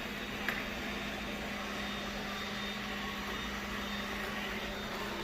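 Bissell EV675 robot vacuum running, its motors giving a steady drone with a constant low tone, and a single click about half a second in.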